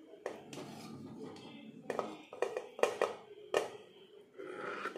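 A perforated metal serving spoon scraping and knocking against a metal pot and a serving plate while cooked biryani rice is scooped out and piled onto the plate, with several sharp clinks.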